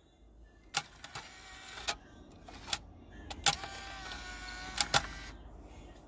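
Alpine 5900 car CD player's motorised disc-loading mechanism: a run of sharp mechanical clicks, then a small motor whirring for about two seconds with a slight dip in pitch as it starts, while the CD is ejected through the slot, ending in two more clicks.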